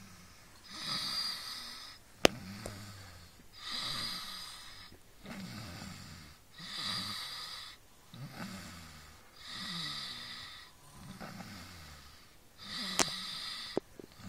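A man snoring in deep sleep, about one breath every three seconds, each with a hissing draw of air and a low rattling snore. A sharp click comes about two seconds in and another near the end.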